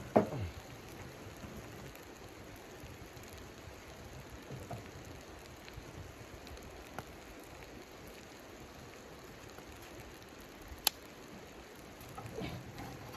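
Steady crackling sizzle from a wood-burning camp stove with chicken frying in a pan on top. Right at the start a stick of firewood is pushed into the metal firebox with a loud scraping knock that falls in pitch; a single sharp click comes about eleven seconds in, and more small knocks of wood and firebox near the end.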